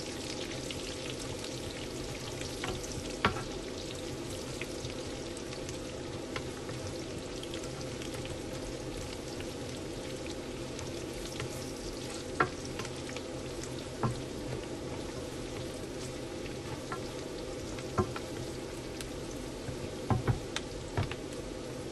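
Garlic and onion sautéing in hot oil: a steady sizzle, with a few sharp clicks of a utensil stirring against the pan, several of them close together near the end.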